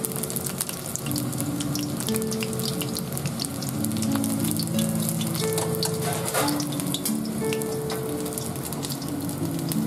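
Breaded soy-meat cutlets shallow-frying in rice oil in a wok: the oil sizzles steadily with a dense run of sharp crackles and pops.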